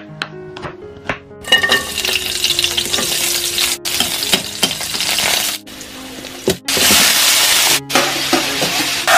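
A knife chops garlic on a wooden cutting board in a few quick strokes. About a second and a half in, the garlic and onion hit hot oil in a wok and sizzle loudly while being stirred. The sizzling breaks off briefly several times.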